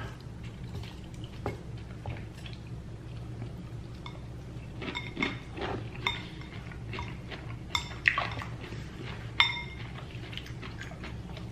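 Cutlery clinking and scraping against a dish during eating: scattered light clicks, with a few louder ringing clinks in the second half, over a steady low hum.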